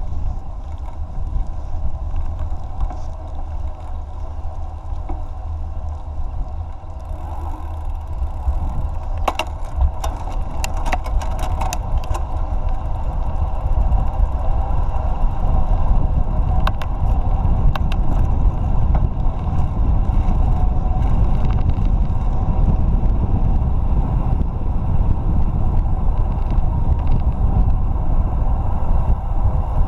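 Bicycle riding on a paved trail: wind rumbling on the camera microphone over a steady hum of tyres on asphalt, with a burst of clicks and rattles about a third of the way in. It grows louder about halfway through.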